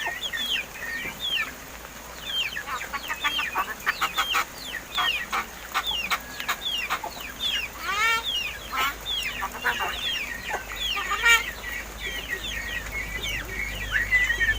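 Crested mynas (Martinez birds) chattering: a steady stream of short, falling chirps, with a rising run of notes about eight seconds in and a drawn-out whistle near the end.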